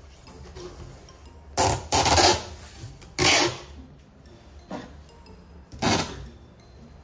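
Clear packing tape being pulled off the roll in four loud, rasping rips as it is stretched across a cardboard box.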